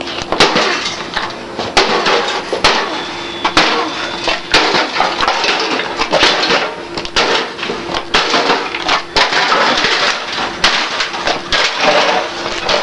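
A toaster oven being smashed: repeated irregular blows, with glass breaking and debris crashing.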